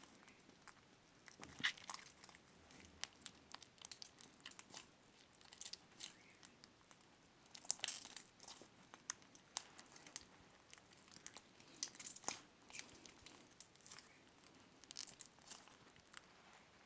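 Slime being squished and worked by hand, giving irregular small clicks and crackles, with a few louder bursts.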